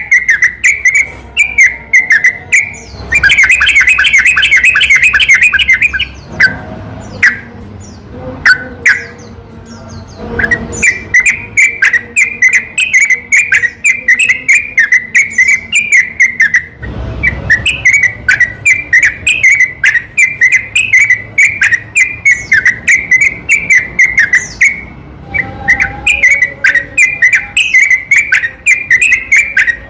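Yellow-vented bulbul (trucukan) song: long runs of rapid, chattering notes repeated almost without pause. A faster trill comes about three seconds in, and the song thins out for a few seconds after it before picking up again.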